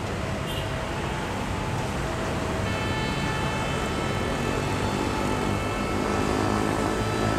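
Steady low engine rumble with outdoor noise. About three seconds in, several high steady tones join it and hold.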